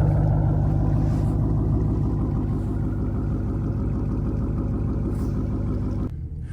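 Ford Mustang (S197) engine running steadily from inside the car. It eases gradually in loudness, then drops off abruptly about six seconds in.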